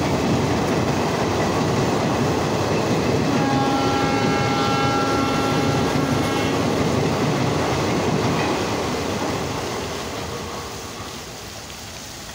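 Passenger coaches of the Chennai Egmore–Kollam Express rushing past, their wheels rumbling over the rails. A steady horn sounds for about three seconds in the middle. The rumble then fades as the train draws away.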